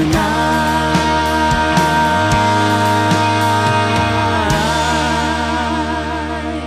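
Rock band playing the song's closing chord under a long held note, which starts to waver in a vibrato about four and a half seconds in. The cymbals and high end cut off at the very end, leaving a fading ring.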